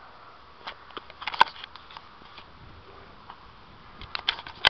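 Handling noise from a handheld phone: scattered clicks and rubbing against the microphone, bunched about a second in and again near the end, over a faint outdoor hiss.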